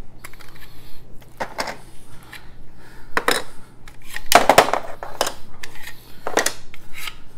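Hand to Hand Wombat's plastic tower pieces being pulled apart and handled, clacking against each other in a string of short clicks and rattles. The loudest clatter comes a little past the middle.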